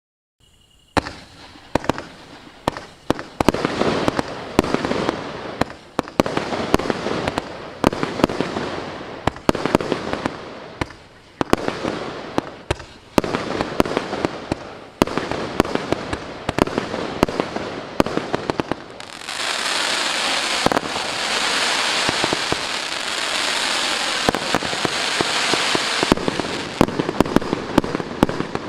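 Maxsem HAPPINESS MC128 firework cake (0.8–1.2 inch, 102 shots) firing, starting about a second in: a rapid series of launches and bursts, each sharp report trailing off. Partway through, the shots run together into a dense, unbroken stretch lasting several seconds before separate shots return.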